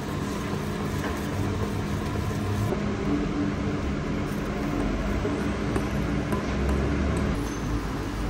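Steady mechanical hum with a low rumble that swells about five to seven seconds in.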